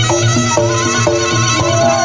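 Reog Ponorogo accompaniment music: a reedy slompret shawm plays a wavering melody over a steady low drum beat, with a held note sliding down near the end.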